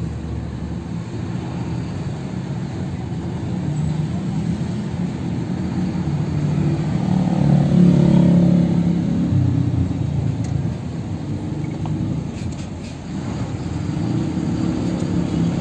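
UD Quester truck's diesel engine heard from inside the cab, a steady low rumble that swells about halfway through, drops briefly near the end, then picks up again as the truck moves slowly in traffic.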